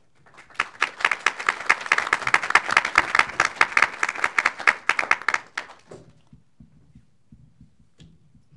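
Audience applauding. The clapping starts about half a second in, holds steady for about five seconds, and dies away about six seconds in.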